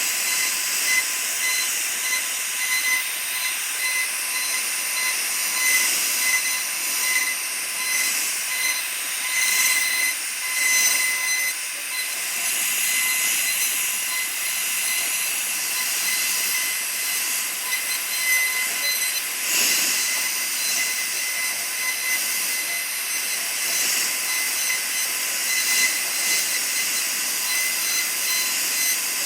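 CNC router spindle running at speed while its bit carves wood: a steady high-pitched whine over a hiss of cutting that swells and fades a little as the bit moves.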